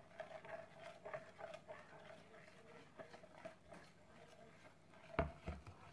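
Spoon stirring jello in a plastic container: faint, irregular taps and scrapes against the sides, with one louder knock about five seconds in. A faint steady hum runs underneath.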